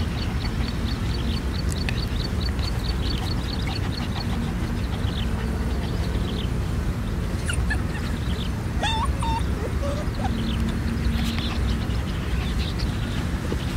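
Puppy giving a few short, rising whimpers a little past the middle, over a steady low rumble. A fast run of high chirps, about five a second, fills the first few seconds.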